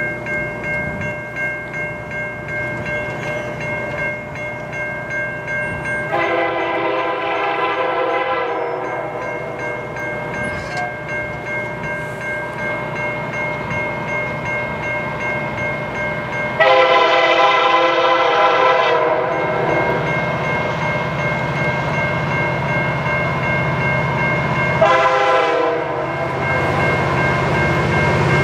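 Air horn of an approaching CN EMD SD75I freight locomotive sounding the grade-crossing pattern: a long blast, another long blast, a short one, and the final long blast starting at the very end. Under it a crossing bell rings steadily, and the diesel engines' rumble grows louder in the last third.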